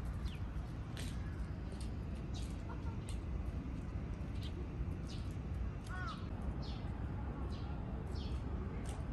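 Birds chirping, with short falling calls coming several times a second, over a steady low rumble.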